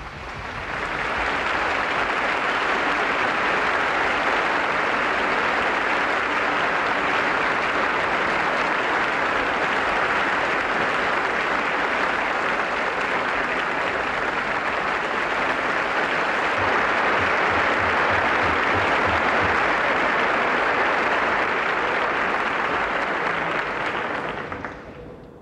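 Audience applauding, swelling up about a second in, holding steady, then dying away near the end.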